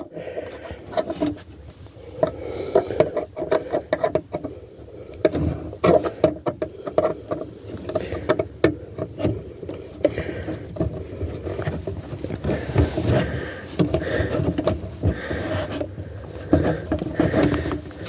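Handling noise: clothing rustling and rubbing against the camera's microphone, with irregular clicks and knocks from hands working at plastic trim under a car's steering column.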